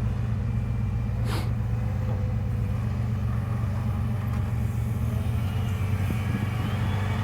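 An engine running steadily with a low, even hum, and a brief hiss about a second in.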